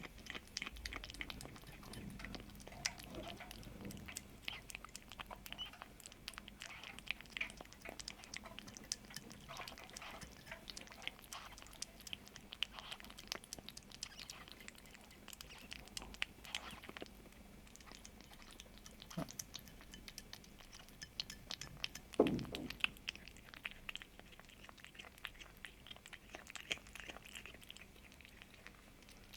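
A kitten eating a snack: small, irregular crunchy chewing clicks throughout, with one louder low thud about two-thirds of the way through.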